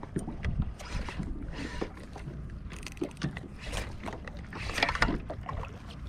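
Water lapping and splashing irregularly around a small boat's hull, over a low wind rumble on the microphone.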